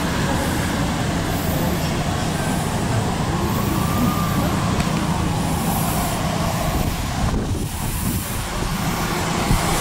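Road traffic noise on a wet street: steady rumble of city bus engines approaching, with tyre hiss. The sound breaks briefly about seven seconds in.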